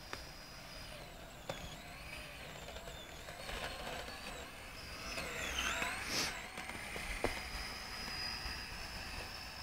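Electric motor of a Kyosho Blizzard RC tracked snow vehicle whining, its pitch rising and falling with the throttle, with a few clicks and one louder rush about six seconds in.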